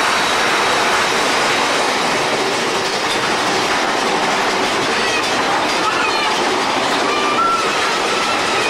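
Mine-train roller coaster cars running along the track with a steady rumble and clatter, with a few short squeals in the second half.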